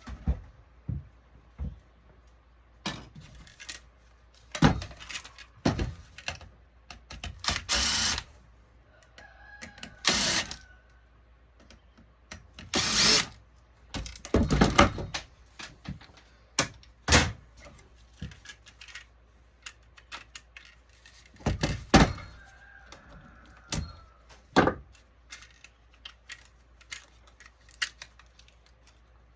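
Irregular clicks, knocks and short scraping bursts from tools and the casing and circuit-board parts of an AMX Modero NXT-CV7 touchscreen panel being taken apart for scrap. The longer bursts come about 8, 10, 13 and 15 seconds in.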